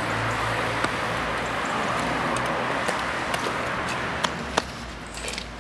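Street traffic noise: a car engine running steadily, then fading away over the last couple of seconds, with a few light clicks and taps.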